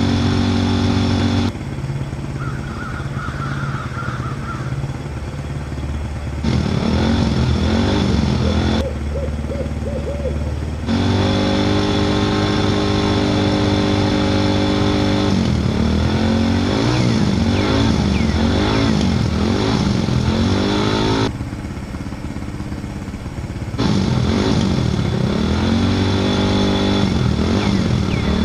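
Vehicle engine running and revving, its pitch holding steady in some stretches and rising and falling rapidly in others, in segments of a few seconds that change abruptly.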